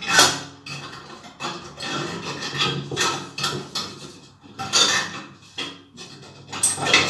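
Glass ceiling-light shade clinking, knocking and scraping against its metal retaining clips as it is worked loose by hand. There is an irregular series of sharp clinks; the loudest come just after the start, near five seconds and just before the end.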